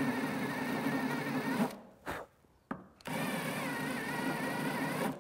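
Electric drill boring a hole into a cast bronze traveler end fitting, running with a steady whine. It stops a little under two seconds in, gives two short blips, then runs steadily again for about two seconds and stops.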